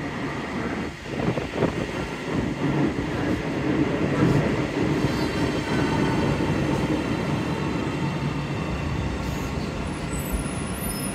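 Alstom Citadis Spirit light-rail train pulling into a station platform and rolling past as it slows to a stop. Its steel wheels rumble on the rails, with a few knocks about a second in and a faint high whine through the middle.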